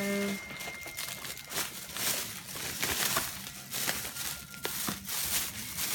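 Plastic shopping bags rustling and crinkling as they are handled, in an irregular run of crackles.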